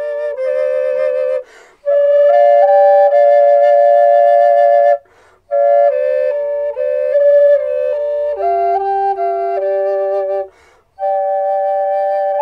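Oak triple flute in G, a Native American-style flute with a tied-on block, playing a slow melody with two or three notes sounding together in harmony. It breaks off three times for short breaths between phrases.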